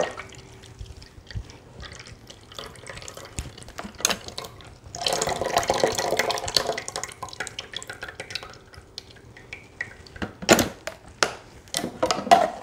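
Fresh pear juice trickling and dripping from a Nama slow juicer into a plastic pitcher. About five seconds in, juice pours out in a stream for a couple of seconds as the juicer's chamber is tipped. A few sharp knocks come near the end.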